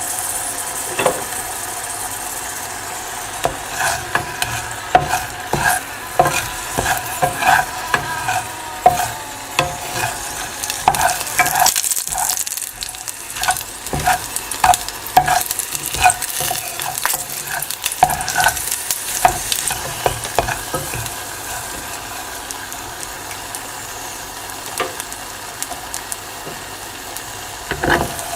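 Whole garlic cloves frying in olive oil and salt over a low flame: a steady sizzle with frequent sharp clicks and pops, which thin out after about twenty seconds.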